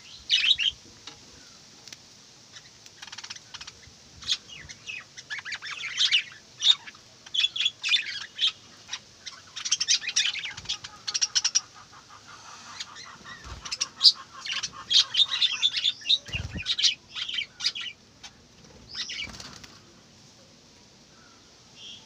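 A small flock of budgerigars chirping and chattering in quick, sharp bursts, with a softer warbling stretch in the middle and a couple of low thumps. The calls die away near the end.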